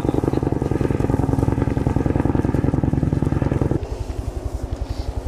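A steady, rapidly pulsing motor drone, about a dozen pulses a second, dropping suddenly to a lower level about four seconds in.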